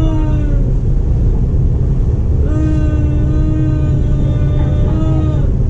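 MTR East Rail line R-Train electric multiple unit running, with a heavy steady low rumble. A held pitched tone starts about two and a half seconds in and lasts nearly three seconds, dropping slightly in pitch as it ends.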